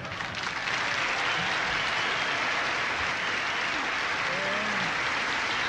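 Large audience applauding, the clapping rising just after the start and then holding steady.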